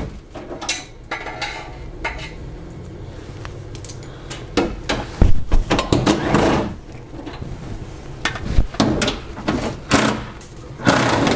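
Metallic clinks, knocks and rattles of hand tools on fasteners and metal parts while the under-car heat shield is being unbolted. The clatter comes in denser clusters about halfway through and again near the end.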